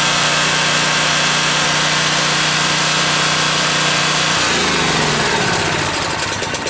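Generac 4000EXL portable generator engine running steadily on natural gas fed into its carburetor. About four seconds in it shuts off: the engine note falls in pitch as it coasts down, ending in a few slowing beats near the end.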